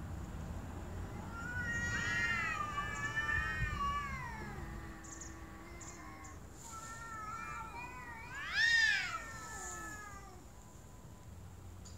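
Two domestic cats in a face-to-face standoff, caterwauling at each other with long, wavering yowls. Two drawn-out yowls come in turn, the second peaking in a louder wail that rises and then falls about nine seconds in.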